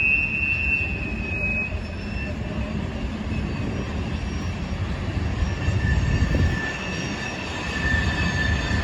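Loaded coal train rolling past: a steady low rumble of the cars on the rails, with thin high-pitched wheel squeals that fade out about two seconds in and come back in the second half.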